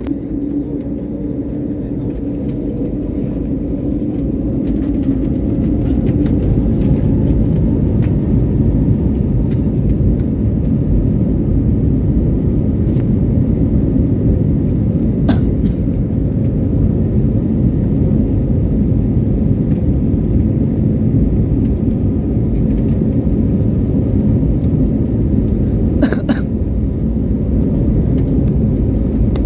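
An airliner's engines spool up to takeoff power with a rising whine, building over the first few seconds into a loud, steady rumble of the takeoff roll. There are two brief clicks, about halfway through and near the end.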